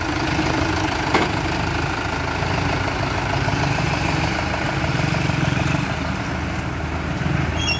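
Mahindra Yuvo 575 DI 4WD tractor's four-cylinder diesel engine running steadily as the tractor drives along the road.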